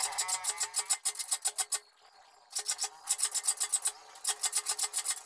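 Triangular file rasping across a hand saw's teeth in quick, even strokes, with a faint ringing note under them. The filing stops briefly about two seconds in and again near four seconds.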